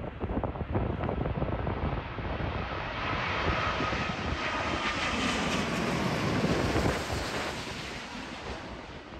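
Virgin Atlantic jet airliner passing over on final approach to land: the engine noise swells over a few seconds, with a faint whine that drops slightly in pitch, and fades near the end. Gusty wind buffets the microphone at first.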